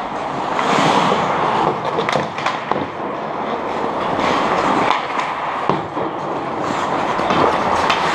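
Ice hockey play: skate blades scraping and carving on the ice, with sharp clacks of sticks and puck now and then.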